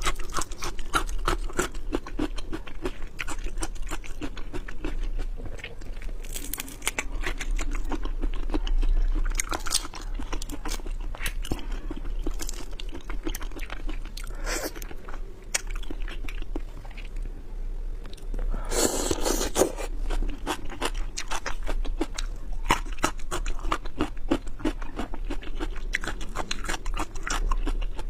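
Close-miked chewing and crunching of seafood: a steady run of small mouth clicks, with one louder crunch about two-thirds of the way through.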